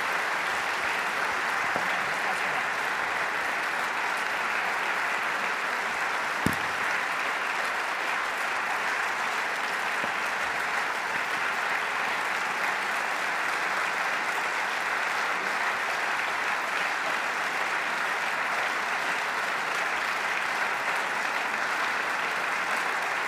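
A large audience applauding steadily, with one sharp knock about six and a half seconds in.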